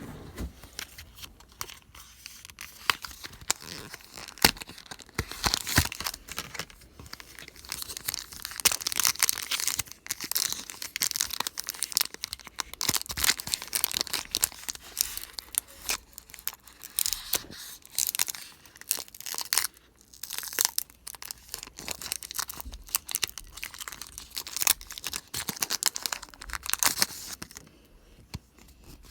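Foil Pokémon booster pack wrapper being torn open and handled: a long run of irregular tearing and crinkling with many sharp crackles, dying away near the end.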